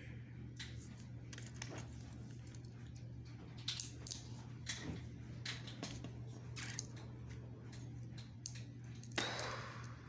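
Plastic building bricks being handled and pressed together: scattered sharp clicks and taps, with a brief rustle near the end, over a steady low hum.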